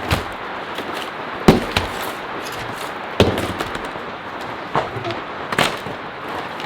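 Five sharp knocks, irregularly spaced about a second apart, over a steady hiss.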